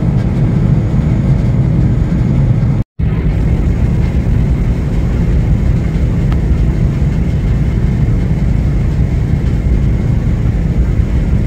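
Steady low rumble of a large container ship passing close by, its engine and hull through the water; the sound cuts out briefly about three seconds in.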